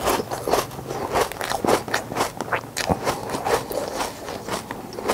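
Ice cubes being crunched between the teeth: irregular, sharp crunching cracks several times a second, close-miked.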